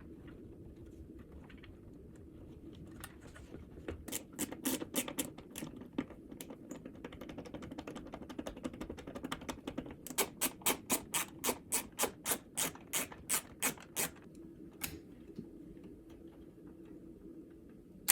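Hand-tool and handling noise from doorbell wiring work: scattered clicks and rustling, then about ten seconds in a steady run of sharp clicks, some four a second, lasting about four seconds.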